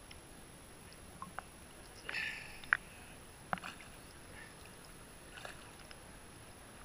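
Sea water lapping and splashing against a camera held at the surface: a faint steady wash with a few sharp little water clicks, and a brief splash about two seconds in.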